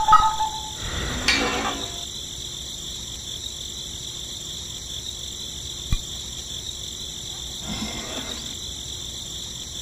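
A steady, high-pitched tone throughout, with a short plastic clack about a second in and soft handling sounds near the end as a nozzle is lifted from a miniature model fuel pump.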